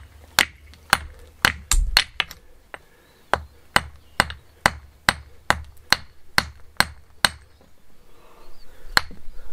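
Claw hammer striking a piece of marble on the ground, cracking the front and side off it to shape it to fit: about eighteen sharp blows, a quick run in the first two seconds, then a steady run of about two a second, and one last blow near the end.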